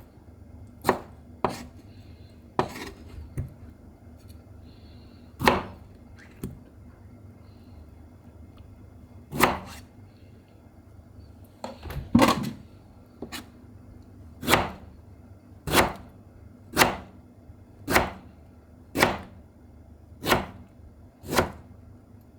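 Chopping: sharp blade strikes on wood, scattered at first, then a steady run of single strokes about once a second in the second half.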